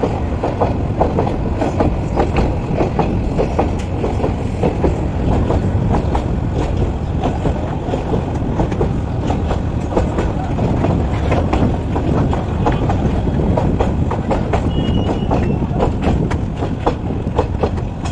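Passenger train coaches running at speed, heard close from the moving train, with a steady rumble and a rapid clatter of wheels over the rail joints.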